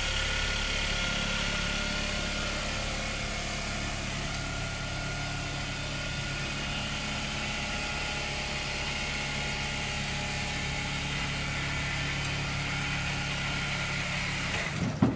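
Clarke Boost 24 orbital floor scrubber running at low speed with extra pressure, its red surface preparation pad scrubbing wax off the floor with plain water; a steady motor hum with the vacuum motor switched off.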